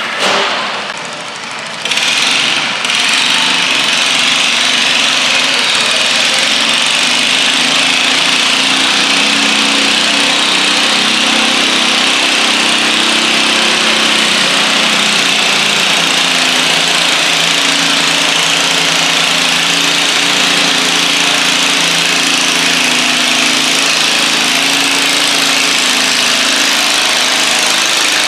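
Stock garden tractor's engine running hard at a steady speed under full load while pulling a weight-transfer sled across a dirt track. It comes in loud about two seconds in, after a quieter start.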